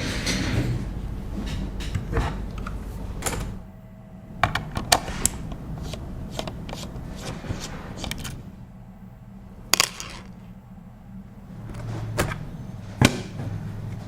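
Scattered sharp plastic clicks and knocks, a few of them loud, from an RK61 mechanical keyboard being handled, with rustling over the first few seconds.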